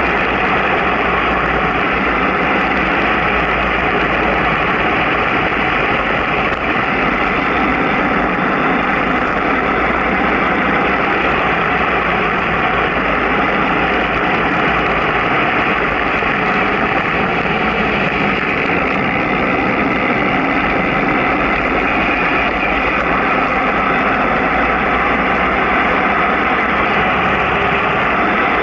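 Steady wind rush and road noise on the microphone of a vehicle moving at about 40 km/h, loud and unbroken.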